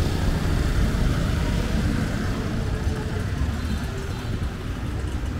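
City road traffic: vehicle engines running as they pass, a steady low rumble.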